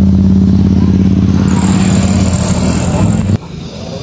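A motor vehicle engine running loud and steady at one pitch, with a thin high whine joining about halfway. It cuts off abruptly a little after three seconds.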